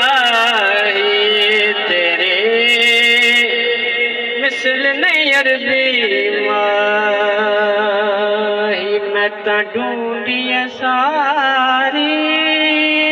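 Sufi devotional kalam in Punjabi: a singer drawing out long wavering, gliding notes over a steady held accompaniment.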